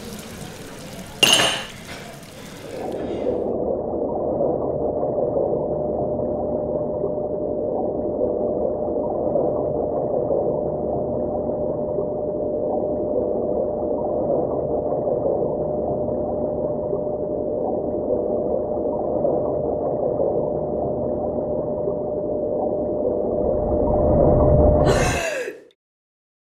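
Water at a sink with a sharp splash about a second in, then a long muffled underwater sound with a thin steady hum, as if heard from below the surface. It swells near the end and cuts off abruptly to silence.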